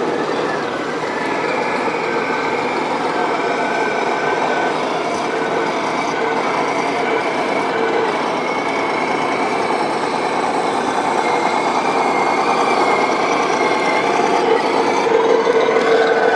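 Radio-controlled model trucks' sound modules playing simulated diesel truck engine noise, a steady layered mix with a few wavering tones, growing a little louder near the end.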